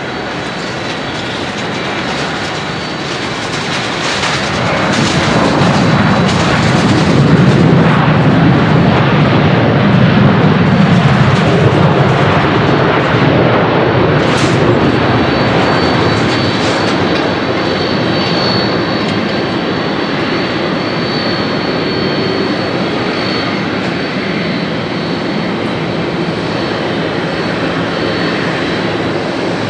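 Boeing 787-8 landing rollout: the jet engines and the rolling on the wet runway build to a loud peak as the airliner passes, then fade slowly as it slows. A thin high whine sets in about halfway through.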